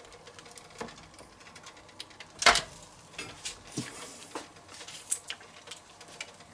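Lid of an OptiGrill Elite contact grill coming down onto a sandwich with a single knock about two and a half seconds in, among light clicks and taps of hands working at the grill.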